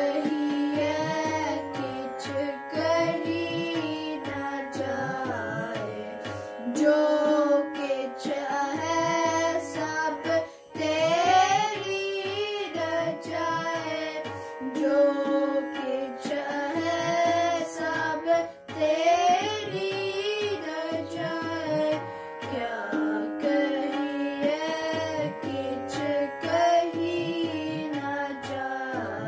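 Children singing a Sikh kirtan hymn together in a high, wavering melodic line over instrumental accompaniment with steady held notes underneath.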